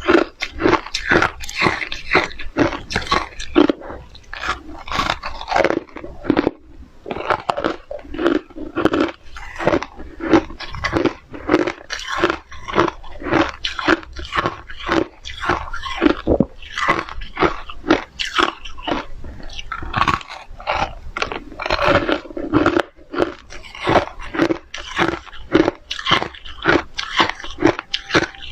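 A person biting and chewing hard shaved ice and crushed hard ice close to the microphone: a continuous run of crisp, crunchy crunches, several a second.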